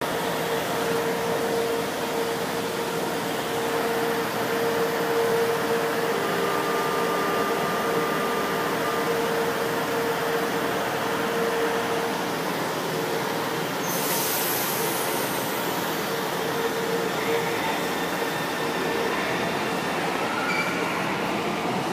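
São Paulo Metro Frota I electric train running alongside the platform: a steady rumble with a constant mid-pitched whine. A sudden sharp hiss of air comes about 14 seconds in.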